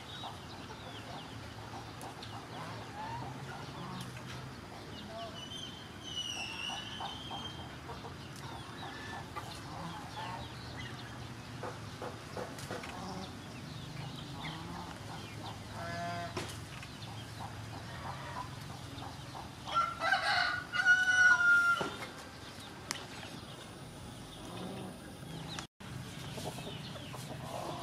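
Chickens clucking in the background, with a rooster crowing once, loudly, about twenty seconds in.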